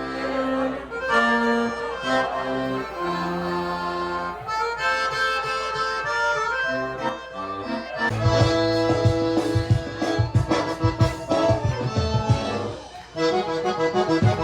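Accordion playing an instrumental melody in sertanejo-style music. About eight seconds in, the music changes to a fuller band sound with bass and a drum beat, which drops out briefly near the end.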